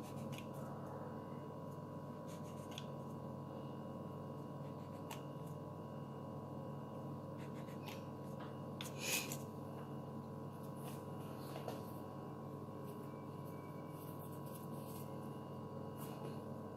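A round dough cutter pressed through rolled-out dough on a work surface: scattered soft taps and scrapes, the clearest about nine seconds in, over a steady low hum.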